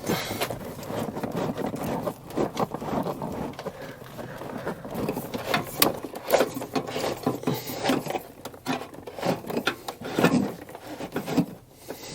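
Irregular knocks, clicks, scrapes and rubbing of hands-on work: wiring being pulled through and handled under the van's seats.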